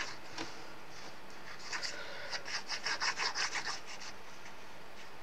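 Nozzle of a squeeze bottle of glue rubbing and scraping across a small piece of card as glue is spread on it, in a run of quick short strokes from about a second and a half in to about four seconds in.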